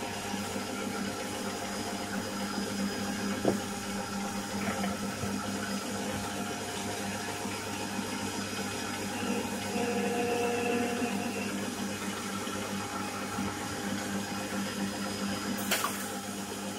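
Metal lathe running steadily, its motor and gearing humming as a carbide insert tool takes light cuts on a small screw, forming the thread runout and then chamfering the end. A sharp click comes about three and a half seconds in and another near the end.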